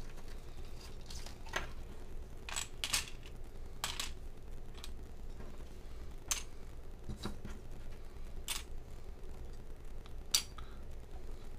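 Scattered clicks and clinks as small metal screws, standoffs and carbon-fibre frame plates are set down on a pocket digital scale and the bench. There are about eight sharp taps at uneven intervals.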